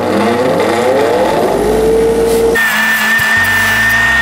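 Hand saw cutting a bicycle fork's steer tube clamped in a saw guide, the blade squealing in sustained pitched tones. The squeal rises over the first second or so, holds steady, then jumps abruptly to a higher, steady squeal about two and a half seconds in.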